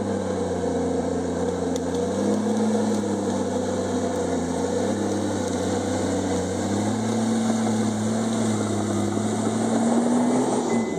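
Komatsu D51EX bulldozer's diesel engine running steadily under work. Its pitch dips and lifts slightly with the load and rises a little near the end.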